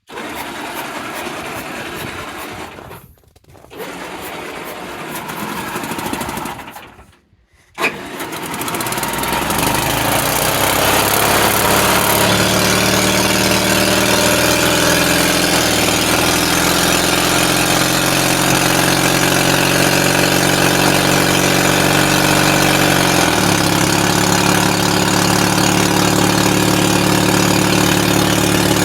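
An engine is cranked in two attempts of about three seconds each, then catches about eight seconds in and settles into steady running. Its note shifts slightly about three-quarters of the way through.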